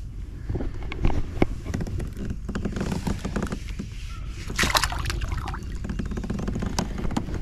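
A largemouth bass is released over the side of a kayak, with a splash in the water about four and a half seconds in. Short knocks and clicks of handling against the kayak come before it.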